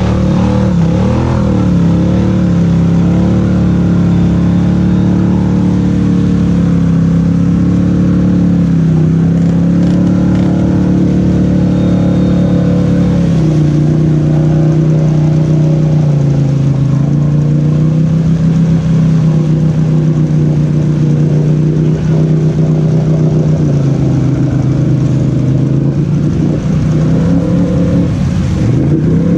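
Snorkeled ATV's engine running hard under load as the quad wades through deep mud and water. Its pitch sags and recovers several times and climbs near the end.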